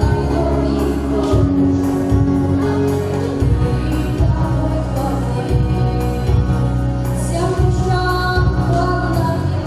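A girl singing a gospel song into a handheld microphone over backing music with a steady bass line, holding long notes.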